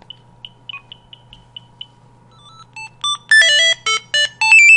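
Gigaset cordless phone playing one of its built-in polyphonic ringtones. A run of soft, short high beeps, about three or four a second, is followed from about halfway by a loud, fast melody of electronic notes jumping up and down in pitch.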